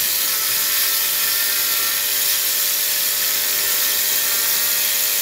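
Ball-bearing motor, two steel ball bearings on a current-carrying shaft fed about 5 amps of low-voltage AC, spinning with a steady whir and a faint hum.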